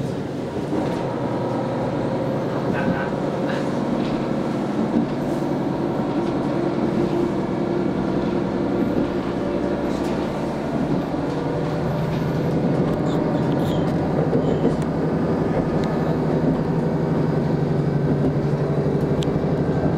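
Diesel railcar pulling away from a station, heard from inside the passenger car: a steady engine drone under power with running noise, growing gradually louder as the train picks up speed.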